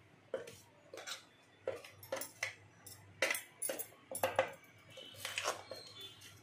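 Metal spoon scraping and clinking against the inside of a stainless-steel mixer-grinder jar as ground masala powder is emptied out: about a dozen short, irregular strokes.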